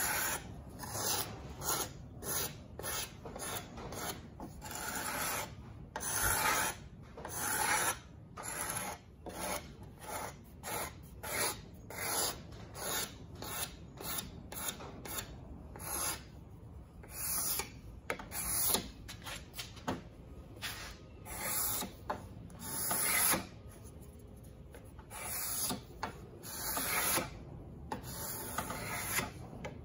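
Steel card scraper scraping the wooden body of an 1800s hand plane in quick repeated strokes, about one and a half a second, with a few short pauses. It is smoothing the wood surface.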